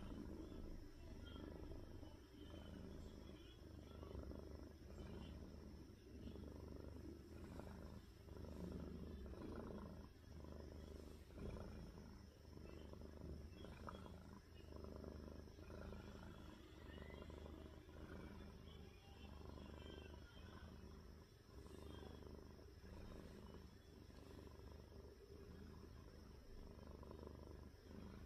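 Domestic cat purring faintly while being stroked, a low rumble that swells and eases with each breath.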